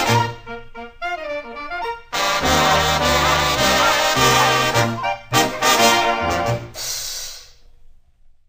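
Swing-band music with brass plays the instrumental close of the song. A quieter phrase with gliding notes gives way about two seconds in to the full band, which ends and fades out near the end.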